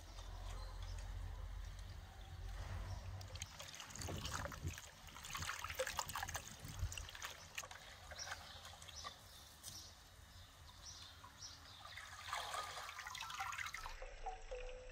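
Water trickling and splashing in uneven spurts, as when something is rinsed under a pouring stream, with scattered small knocks and clicks. A low rumble sits under the first four seconds.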